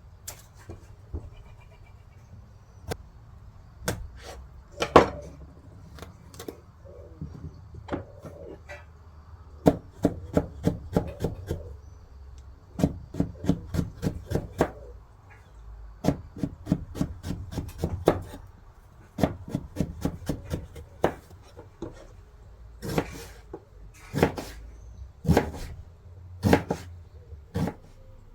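Kitchen knife chopping vegetables on a wooden cutting board: runs of quick knocks, about four or five a second, broken by pauses and a few single, louder strokes.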